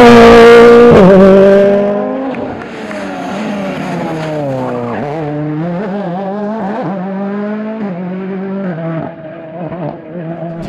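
Ford Fiesta RRC rally car's turbocharged four-cylinder engine passing very close and loud, its pitch dropping about a second in. It then runs quieter, revving up and dropping back repeatedly through gear changes as it brakes and accelerates again.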